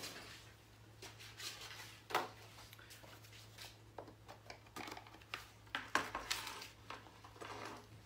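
Scattered light clicks and clinks of small metal parts being handled: computer-case screws and a digital vernier caliper picked up for measuring. A steady low electrical hum runs underneath.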